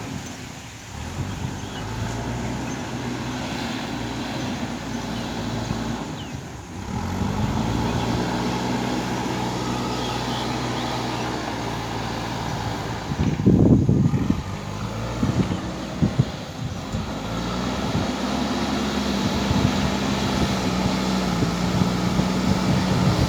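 JCB 3DX backhoe loader's diesel engine running under load while pushing soil, its speed rising about a third of the way in and dipping and picking up again later. A brief burst of loud knocks comes a little past halfway.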